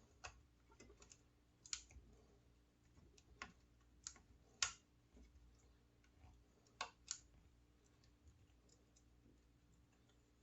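Faint, scattered small clicks and taps of hands handling the opened router's plastic housing and parts, a few clearer ones about two, four and a half and seven seconds in, over near silence.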